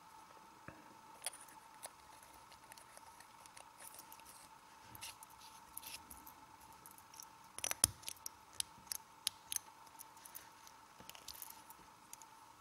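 Small metal LED flashlight being handled and assembled: scattered faint metallic clicks, taps and scrapes as its battery tube and threaded sections are fitted and screwed together, with a cluster of louder clicks about eight seconds in. A faint steady hum lies underneath.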